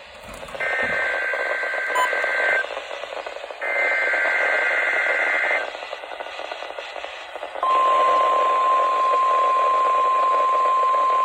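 NOAA Weather Radio weekly test tones received through a weather radio with static hiss. First come two roughly two-second bursts of the SAME digital header, a two-pitch data warble, about a second apart. About seven and a half seconds in, the steady single-pitch warning alarm tone starts and holds.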